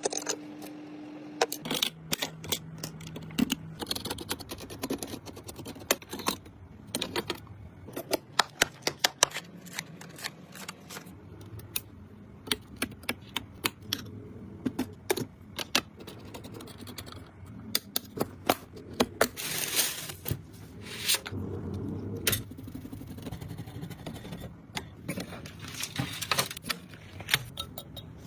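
Irregular clicks, taps and scraping of computer parts being handled and fitted together during a PC build.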